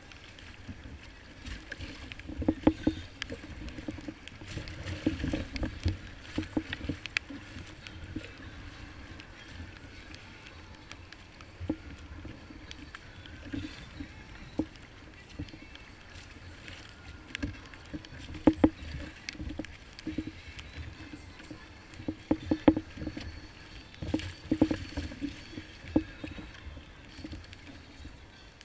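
Choppy sea waves slapping and splashing against a kayak's hull, with sharp irregular knocks and thumps coming in clusters.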